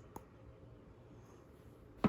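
Near silence: room tone, with one faint click just after the start.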